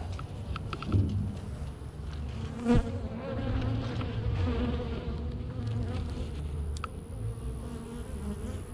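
Honeybees buzzing around an open hive, a steady hum, with a sharp knock about three seconds in.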